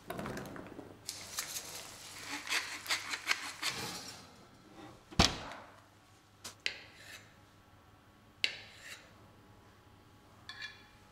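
Food and dishes being handled on a kitchen worktop: rustling scrapes and small knocks, then one sharp knock about five seconds in, followed by a few lighter clicks as pieces are set down on plates.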